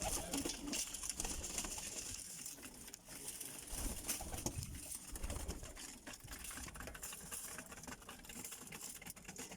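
Birmingham roller pigeons cooing, with scattered small clicks and rustling throughout.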